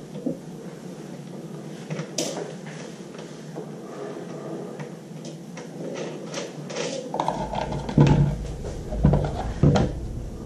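Metal clicks and knocks of hands fitting the stainless clamp ring between an industrial vacuum's motor head and its filter housing, with three heavier thumps near the end.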